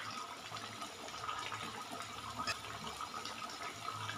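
Melted ghee poured into a beef karahi on the flame, the curry sizzling and bubbling steadily, with a few faint clicks.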